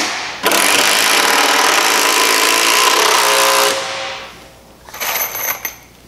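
Cordless drill-driver driving a screw into 6x2 softwood timber, running steadily for about three seconds, then winding down. A shorter burst follows about five seconds in.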